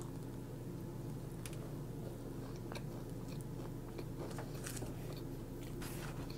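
Close-miked chewing of a crispy fried chicken sandwich: soft, irregular crunches and mouth sounds over a steady low hum.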